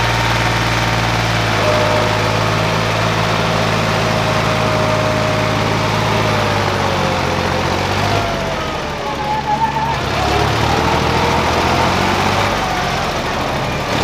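John Deere tractor's diesel engine running under load as it hauls a trailer loaded with a road roller through sand. The engine note changes about eight seconds in, dipping briefly, then settles again.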